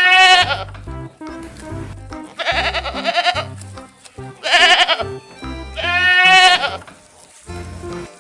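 A goat bleating four times, each bleat a quavering call about a second long, in a repeating pattern over music with a steady bass line.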